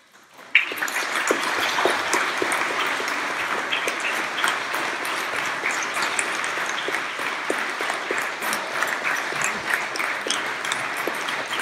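Congregation applauding, many hands clapping steadily; the applause starts suddenly about half a second in.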